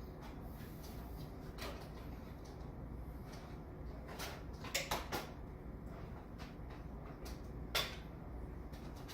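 Scattered clicks and knocks of a graphics card and its metal bracket being handled and pushed into a desktop PC case's slot: a quick run of three clicks about halfway through and one louder click near the end, over a low steady hum.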